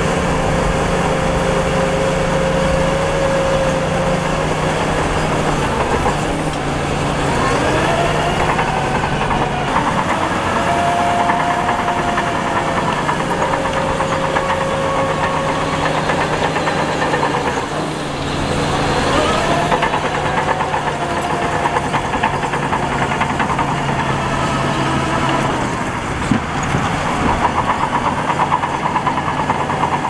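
Heavy diesel engines of earthmoving machinery running, their pitch rising and falling several times as they rev and take load. A faster, rhythmic clatter comes in near the end.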